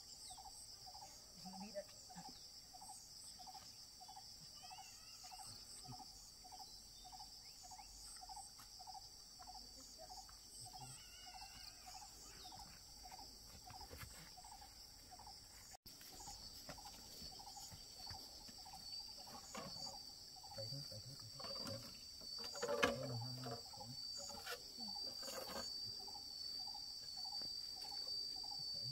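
Insects trilling in a steady high chorus, with a lower chirp repeating about twice a second through the first half. After an abrupt cut about halfway through, a steady high insect whine continues under a few knocks and rustles, the sharpest knock coming about two-thirds of the way in.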